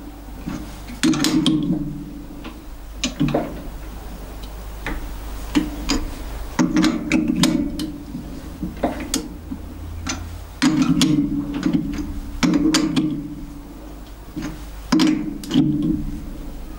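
A die nut cutting a quarter-inch 20-threads-per-inch thread on round stock in a lathe chuck, worked by hand in short turns. It gives repeated grinding, creaking bursts about a second long, with sharp clicks between them.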